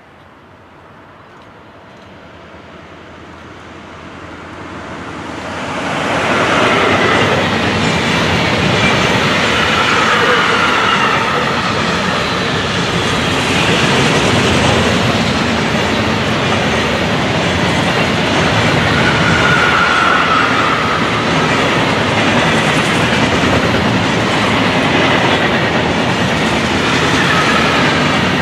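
Container freight train hauled by a Siemens Vectron (BR 193) electric locomotive approaching and passing close by. The sound builds over the first six seconds as the locomotive arrives, then holds as a loud, steady rolling of the container wagons' wheels on the rails, with faint high wheel-squeal tones now and then.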